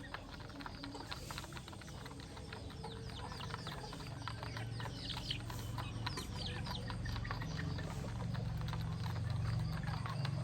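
Chickens peeping over and over in many short falling calls, with a dense patter of small clicks as they peck at feed. A low rumble under it grows louder in the second half.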